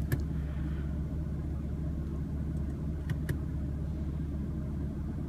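2016 BMW M3's twin-turbo straight-six idling, a steady low hum heard from inside the cabin, with a few faint clicks.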